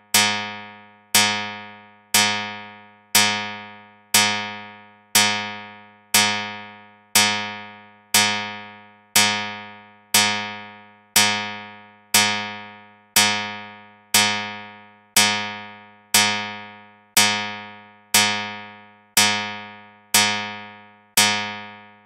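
A bell-like metallic ding struck about once a second, each strike ringing out and fading before the next, played as a headphone right-channel test signal.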